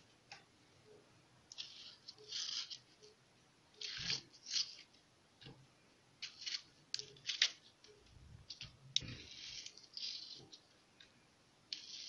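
Kitchen knife cutting through parboiled, softened quince: about a dozen short, soft rasping cuts at an irregular pace.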